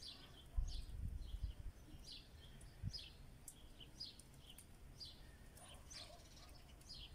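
Small songbirds chirping, many short high calls one after another, with a few low bumps on the microphone about a second in and near three seconds.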